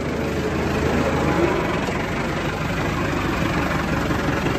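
Massey Ferguson 385 tractor's four-cylinder diesel engine running steadily while it pulls a spring-tine cultivator through the soil.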